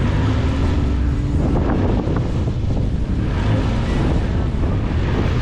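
Side-by-side UTV engine running with a loud, steady low rumble, overlaid by heavy wind buffeting on the microphone.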